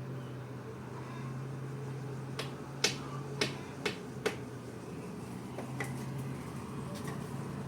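A handful of sharp, short clicks or taps, about seven in all, the loudest about three seconds in, over a steady low hum.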